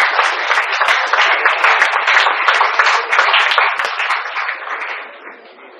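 Audience applauding, many hands clapping in a dense patter that fades away near the end.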